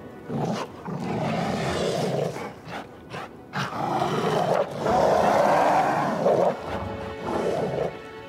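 Werewolf creature growling and snarling, a film sound effect, in a run of long rough growls with short breaks, over a tense music score.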